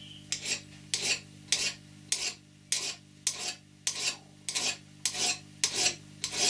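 Hand file rasping across the end of a metal bolt held in a bench vise, filing a hex onto it: even strokes, about two a second.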